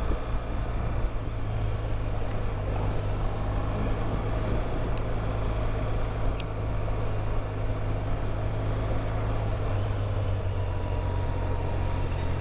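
BMW motorcycle's engine running at a steady cruise, with wind and road noise on the bike-mounted microphone; an even, low hum that holds level.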